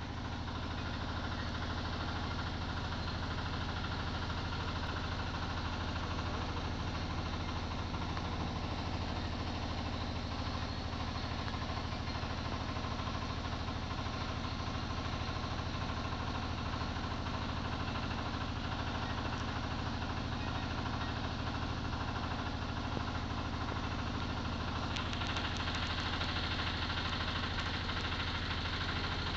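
A steady engine hum, like an engine left running at idle, unchanged throughout. About 25 seconds in, a hiss joins it.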